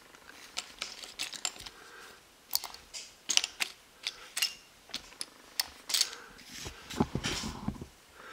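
Small plastic LEGO pieces clicking and clattering on a tabletop as they are picked through by hand, in a string of irregular sharp clicks.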